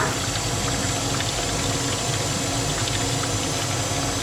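Steady mechanical hum of a wire EDM machine running, with its pump going and faint scattered ticks over it.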